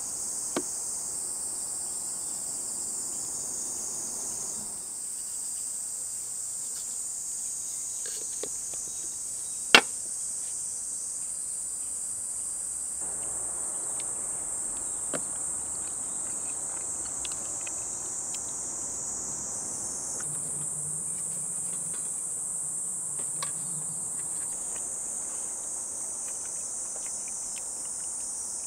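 Steady high-pitched insect chorus with scattered faint clicks and knocks. One sharp knock about ten seconds in is the loudest sound.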